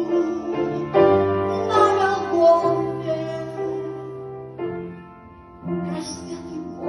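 Keyboard accompaniment of a slow song playing between sung verses: held chords that shift every second or so, with a brief hiss near the end.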